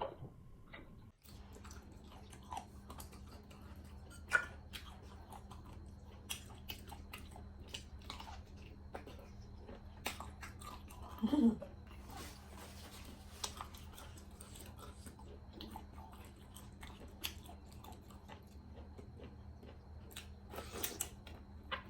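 Close-up mouth sounds of chewing boiled sea whelk meat: irregular wet clicks and small bites, the meat chewy and tough.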